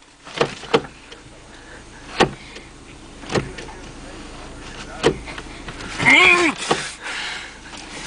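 Car seatbelt being tugged and fumbled with: a handful of sharp clicks and knocks from the belt's metal latch plate and retractor as the webbing is pulled. About six seconds in there is a short vocal sound that rises and falls in pitch.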